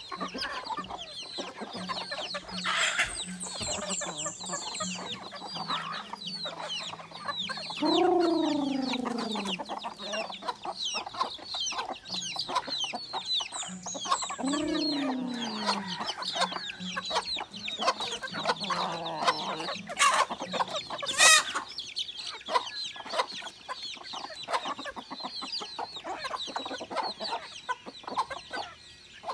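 Flock of free-range native chickens clucking as they forage, over a steady din of high chirping. Two drawn-out calls fall in pitch about eight and fourteen seconds in, and a sharp high-pitched sound a little after twenty seconds is the loudest moment.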